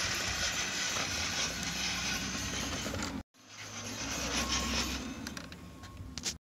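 Electric scale RC rock crawler's drivetrain running, motor and gears whirring, as the truck crawls on a wooden pallet ramp. The sound breaks off for a moment about three seconds in, then resumes with a few sharp knocks near the end before stopping suddenly.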